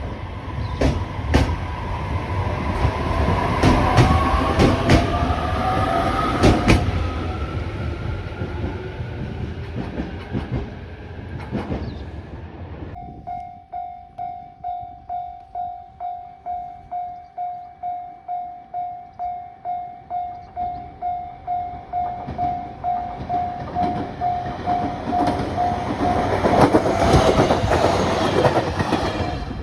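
An electric train passing close by, its wheels clattering over rail joints under a rising motor whine. Then a level crossing alarm bell ringing steadily about twice a second while another train approaches and passes near the end.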